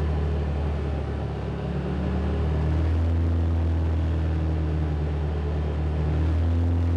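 Can-Am Defender HD10 side-by-side's V-twin engine and driveline running at a steady cruise, heard from inside the cab as a steady low hum that steps up slightly about three seconds in. The vehicle is in four-wheel drive with the rear differential locked.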